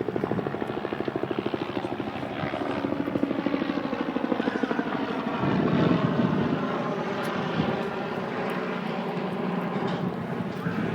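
Helicopter flying overhead, its rotor beating in a fast, steady chop that grows louder about five seconds in.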